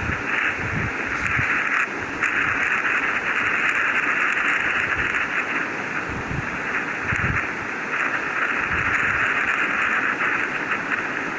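Space-audio track played as the sound of Mars: a steady, static-like hiss, strongest in a mid-high band, that swells and dips every second or two, with a few soft low rumbles beneath.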